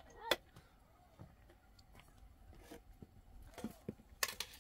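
Metal slotted ladle knocking and scraping against a steel pot and colander as cooked noodles are lifted out: a sharp clink near the start and a few more near the end, with faint scraping between.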